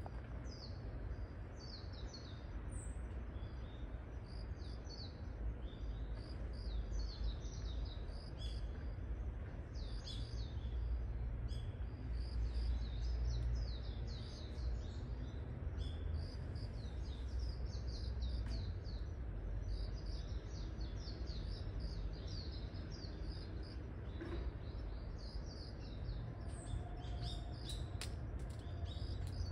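Small birds chirping steadily, many short high calls overlapping one another, over a low steady rumble of outdoor background noise.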